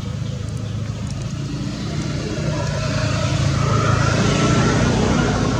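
A motor vehicle's engine running steadily, growing louder over the last few seconds as it comes closer.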